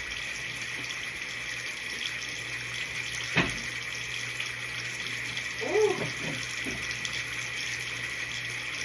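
Bathroom sink tap running steadily, with a sharp click about a third of the way in and a brief pitched sound around six seconds.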